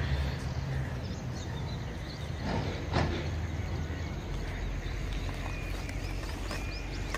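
Outdoor ambience: birds chirping faintly over a steady low rumble, with a single brief knock about three seconds in.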